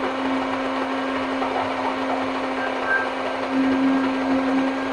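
Electric countertop blender running steadily, its motor humming as it grinds soaked red lentils (masoor dal) into a thick paste with almost no water.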